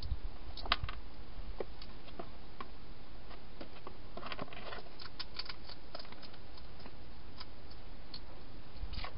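Wild hedgehog feeding inside a clear plastic feeding box: irregular small clicks and crunches, with a quick cluster about four to five seconds in, over a steady hiss.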